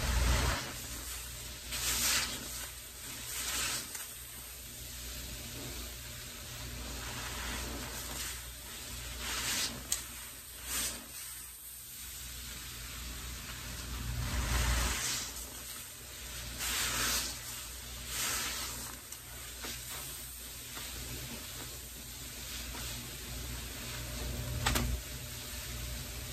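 Soapy sponges squeezed in a bucket of pine-cleaner water, the suds sizzling and crackling, with a wet squishing swell every few seconds as a sponge is wrung out.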